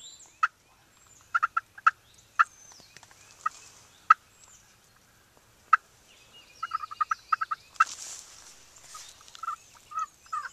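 Wild turkeys calling: scattered short, sharp notes, then a quick run of them about two-thirds of the way through, with songbirds chirping faintly higher up.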